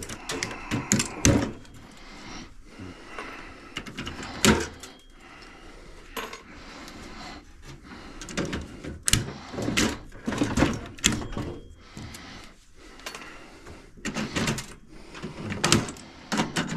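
Irregular metallic clicks, clanks and snaps of a microwave's small metal parts and hand tools as pieces are pried and broken off, with a few louder knocks.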